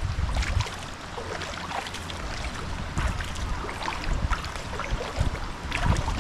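Water sloshing and splashing, with wind buffeting the microphone as a low rumble.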